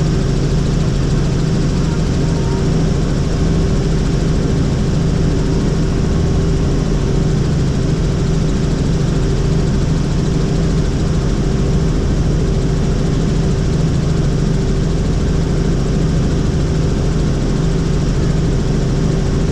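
Helicopter in steady flight: the even drone of its rotor and engine, with a constant low hum that does not change.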